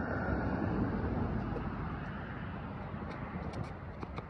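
A passing vehicle's noise swells over the first second and slowly fades away, with a few faint knocks near the end.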